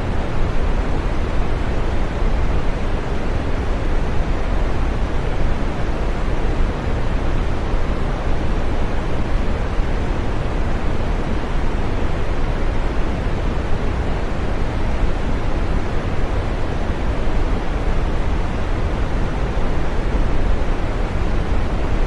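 Steady green noise: a continuous, even hiss with a soft rumble beneath it, heaviest in the low and middle range and thinning out toward the top, with no changes or events.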